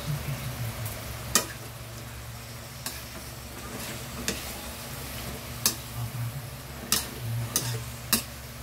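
A metal spatula stirring and scraping chicken sisig in a steel wok over a steady sizzle of frying. The spatula strikes the pan in about seven sharp clinks, spaced irregularly about a second apart.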